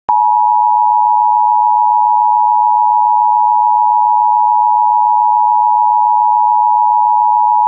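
Emergency Alert System attention signal: a loud, steady two-pitch alarm tone held for about eight seconds, then cut off abruptly. It sounds before the spoken flood warning.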